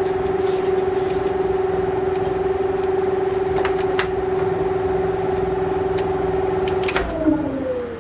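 Arctic Cooling BioniX F120 120 mm PC fan running on its own with a loud, steady hum. It sounds much louder than another fan at the same speed, which the owner suspects is a defect. A few light clicks come in the middle, and near the end there is a click, then the hum falls in pitch as the fan spins down.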